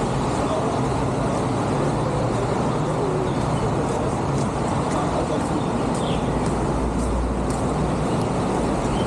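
Steady roar of city road traffic, a constant rumbling noise with no single vehicle standing out.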